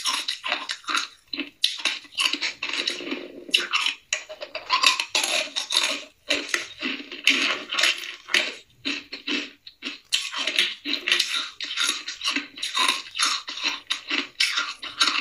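Hard ice cubes being crunched and chewed close to the microphone: a rapid, irregular run of sharp cracks and crunches. Around the middle, a spoon scrapes and clinks through ice cubes in a plastic tub.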